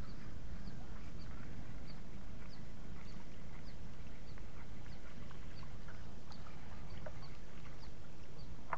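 Steady low rumble with a faint, short, high chirp repeating about twice a second.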